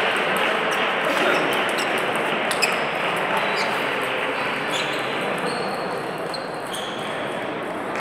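Table tennis hall with several tables in play: a steady din of the hall, with celluloid ping-pong balls clicking sharply off bats and tables at irregular moments.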